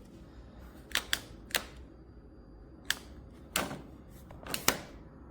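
Sharp plastic clicks from buttons or switches on a cordless lawn mower's controls being pressed again and again. There are about seven irregular clicks, the last two close together, and no motor running.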